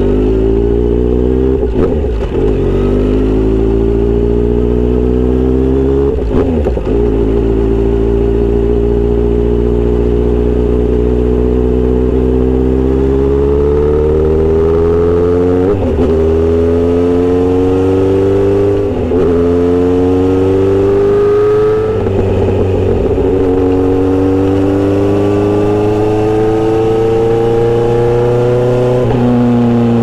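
Kawasaki Z900RS inline-four running through a Misty Kintaro short-pipe muffler with L silencer, heard while riding. The engine note climbs steadily and then drops abruptly, about six times.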